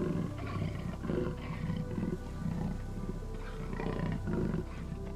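Background music with held, steady tones, over low roar-like calls that come and go every half second to a second.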